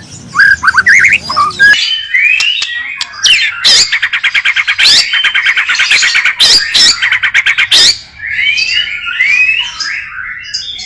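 White-rumped shama (murai batu) singing a loud, varied song of sliding whistled phrases, with a fast run of rapidly repeated notes in the middle and several sharp, loud notes.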